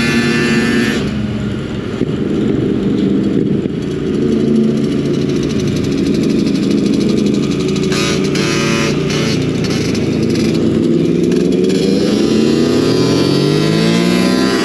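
Motorbike engine running during a group ride, under rushing wind noise. Near the end its pitch climbs steadily as it accelerates.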